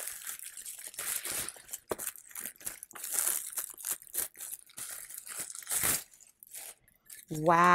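Paper gift wrapping being crinkled and torn off a package in irregular handfuls of rustling and ripping, dying down for about a second before a woman's voice comes in near the end.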